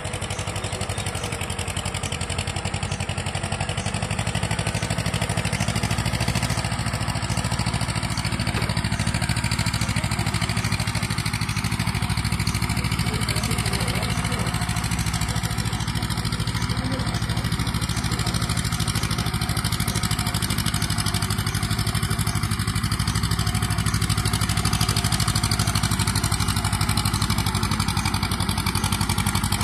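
Tractor diesel engine running steadily as it puddles a flooded rice field, growing slightly louder as it draws nearer.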